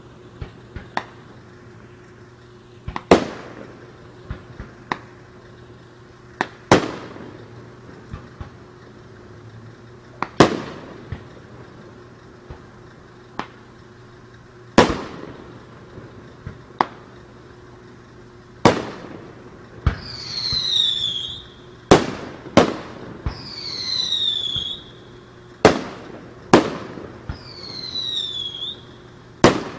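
Fireworks display: sharp bangs of bursting shells every three to four seconds, with smaller pops between them. From about two-thirds through, a falling whistle rises out of the sky a second or so before each of the last few bangs.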